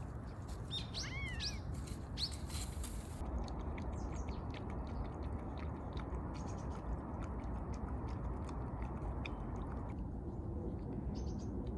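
A few short bird chirps over dry fallen leaves rustling under walking cats. Then, from about three seconds in, a dog and a cat chewing and licking food off a rock make a run of small sharp clicks.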